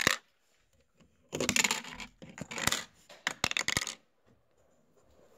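Plastic Lego bricks clattering and clicking against each other in three short bursts, the last with several sharp clicks.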